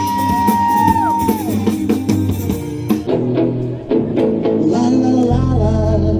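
Background music: a rock-style song with guitar, drums and singing, a heavy bass line coming in near the end.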